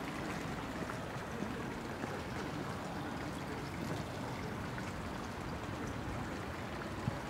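Steady rain with water trickling and running off, an even wash with scattered small drop ticks.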